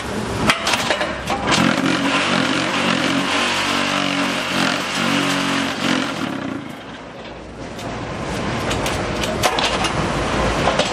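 Vibration motors of a Henry hollow concrete block machine running loudly, shaking the block mould. They stop about six seconds in and start up again roughly two seconds later.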